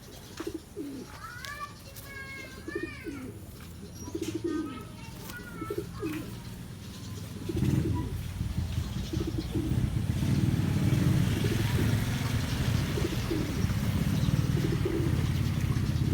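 Homing pigeons cooing, with short low coos repeating throughout and a few high arched chirps in the first half. About halfway in, a louder low steady rumble rises under the coos.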